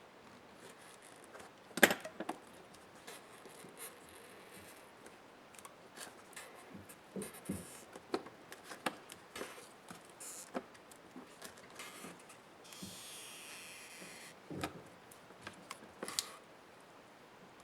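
Small clicks, taps and scrapes of laptop parts being handled and taken apart by hand. A sharp click comes about two seconds in, and a rasping scrape lasting just over a second comes later.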